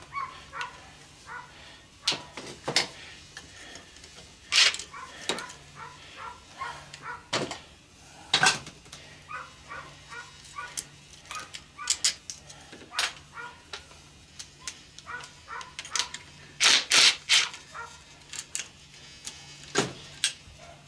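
Irregular clanks, clicks and knocks of metal parts and hand tools being handled while screws are backed out of a washing machine's housing, with a few louder bangs.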